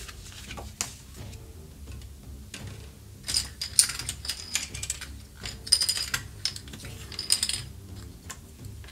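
Hard plastic miniature bases clicking and clattering as they are picked off a stack and set down on a cutting mat, in three quick clusters of sharp clicks.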